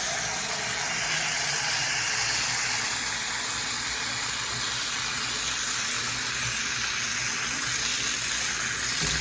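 Shower head spraying water steadily, a continuous even hiss of running water.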